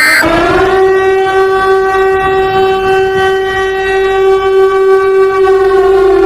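A long, steady horn-like tone with many overtones, sliding up slightly at the start, holding about six seconds and cutting off abruptly. It follows a brief electronic burst at the very start.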